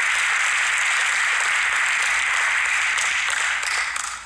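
Audience applauding steadily, the clapping dying away near the end with a few last separate claps.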